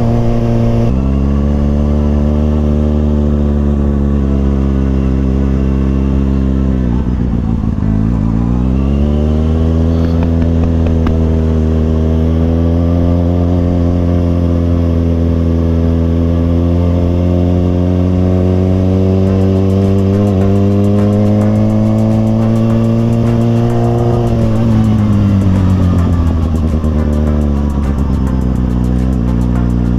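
Kawasaki ZX-6R inline-four engine running under way. Its pitch dips about seven seconds in, climbs slowly until about twenty-four seconds in, falls off, and then drops again near the end.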